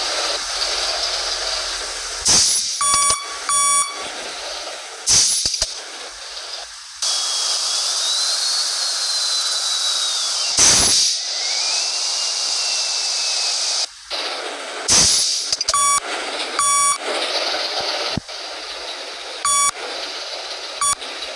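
Bus basuri telolet horn sounding short, high beeping notes, a pair about three seconds in and a few more later, over a steady hiss broken by short loud bursts of hissing air.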